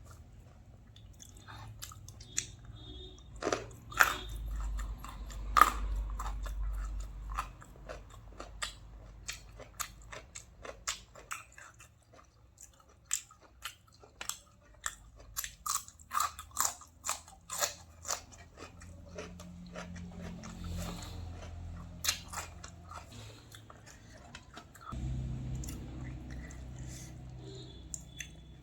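Close-up eating sounds: a person chewing and crunching food, with many sharp mouth clicks and smacks, a few loud crunchy bites about four and five and a half seconds in, and a quick run of them in the middle.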